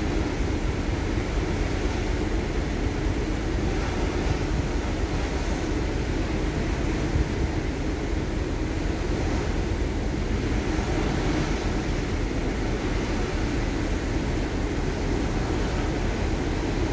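Wind buffeting the microphone in a steady rush, over a constant low rumble, on the open deck of a car ferry under way.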